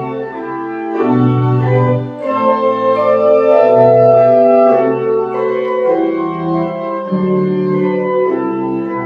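Church pipe organ playing the postlude: sustained full chords over a bass line, changing every second or so.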